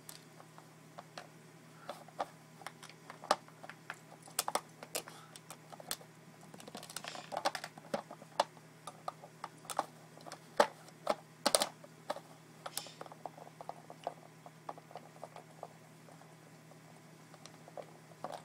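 Aikiou plastic puzzle feeder being nosed and pawed by a Pembroke Welsh Corgi: irregular plastic clicks and clacks as its lid and covers shift, busiest in the middle and sparse near the end.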